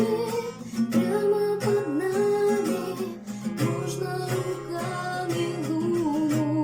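Acoustic guitar strummed in steady chords, with a woman singing the melody over it.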